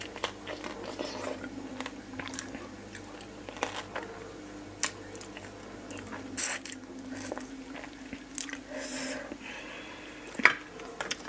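Close-up eating sounds of fish-sauce-pickled blue swimming crab: wet sucking and smacking as the meat is drawn from the legs, with scattered sharp cracks of shell, the loudest about six and a half seconds in.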